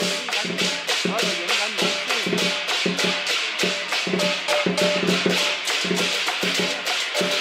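Lion dance percussion: a large Chinese drum beating with cymbals clashing in a fast, steady rhythm of several hits a second.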